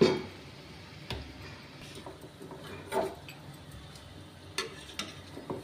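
Samosas frying in oil in a steel kadhai: a steady quiet sizzle of slow frying on a low flame, with about five sharp clicks and taps of a perforated steel slotted spoon against the pan as they are stirred.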